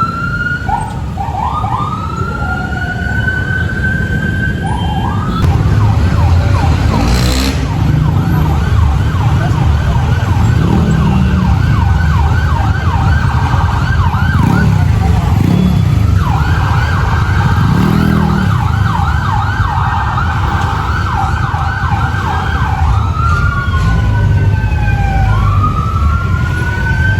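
Fire truck sirens sounding on an emergency run. Slow rising and falling wails switch to a fast yelp for most of the stretch, then return to wails near the end, with two sirens overlapping. Truck engine rumble runs underneath.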